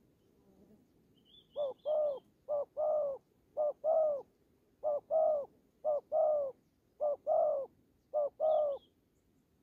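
Spotted dove cooing: six two-note coos, each a short note then a longer one, about one a second. This is a male's challenge coo at a rival. A small bird chirps faintly twice, near the start and near the end.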